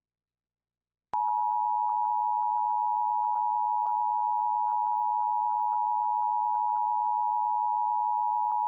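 Emergency Alert System attention signal: a loud, steady two-tone alarm beginning about a second in after a short silence. It marks the start of a broadcast emergency alert, here a flood warning.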